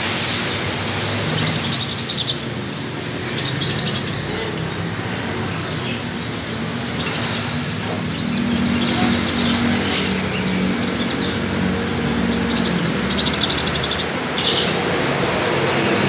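A flock of caged budgerigars chirping and chattering, many short high chirps overlapping throughout, over a low steady background hum.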